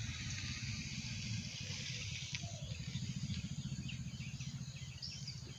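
Background ambience: a steady low mechanical hum with a rapid flutter, with a few faint bird chirps over a light hiss.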